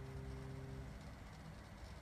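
Mini water pump running under PWM motor control, a steady low hum that drops away about a second in.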